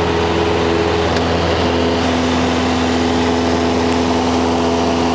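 Cessna 172's four-cylinder Lycoming engine and propeller droning steadily at climb power, heard inside the cabin. The tone shifts slightly about a second in.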